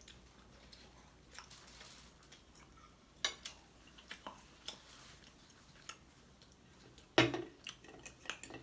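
Scattered light clicks and clinks of cutlery on a plate during eating, with a louder clatter near the end.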